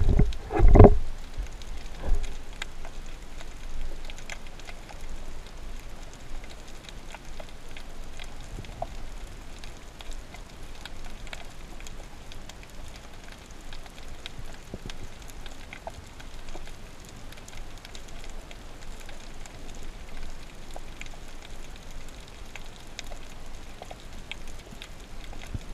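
Underwater ambience picked up by a camera in its housing: a steady crackle of many tiny clicks over a soft hiss, with a few low thumps in the first two seconds.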